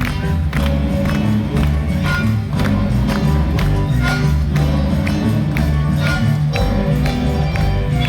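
An ensemble playing a Paraguayan polka, with sustained pitched notes over a steady beat of percussive strikes about twice a second.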